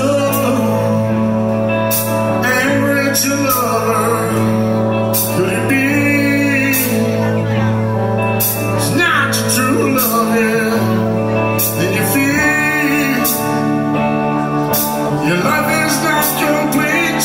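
Live rock band playing with drums, bass and electric guitars: sustained low bass notes under a bending melodic lead line, with regular cymbal hits.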